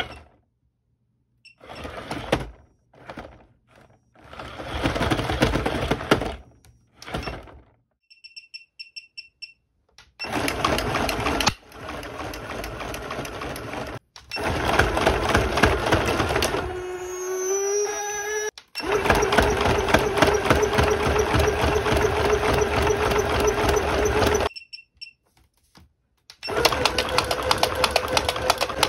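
Animated dancing pumpkin-ghost toys driven past their rated voltage from a bench power supply. Their motors and plastic gear mechanisms run hard in stops and starts, with a loud rattling clatter. About halfway through a motor whine rises and then holds steady. A short run of electronic beeps comes about eight seconds in.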